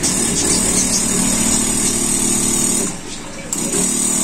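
Boyu ACQ-906 12-volt DC diaphragm air compressor running off a battery: a steady mechanical hum with a hiss of pumped air. It cuts out for about half a second about three seconds in, then runs again. It is somewhat noisier than a Hailea HAP-60 aerator.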